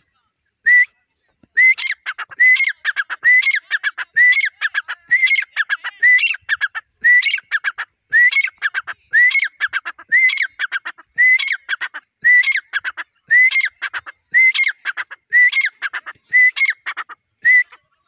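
Grey francolin (teetar) calling loudly: a shrill call phrase repeated about once a second, each phrase a clear opening note followed by a quick run of short notes.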